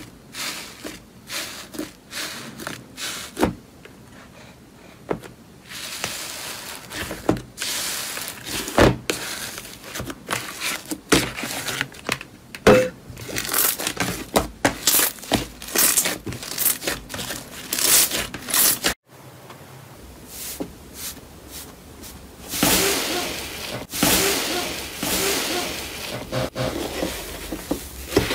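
Hands squeezing, poking and stretching slime: sticky crackling and sharp pops. After an abrupt cut about two-thirds of the way in, there is a denser crackling squish as a soft, fluffy slime is kneaded.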